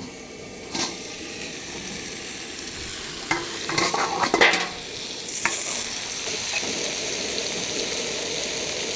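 Skewers and potatoes sizzling steadily as they cook, with a few sharp clinks and knocks about a second in and again a little before the middle. The sizzle grows somewhat louder over the second half.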